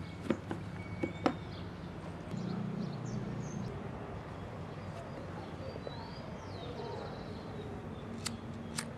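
Sharp taps of small objects being set down by hand on paving tiles: four in the first second and a half and two more near the end. Under them runs a low steady hum, and a few birds chirp faintly in the middle.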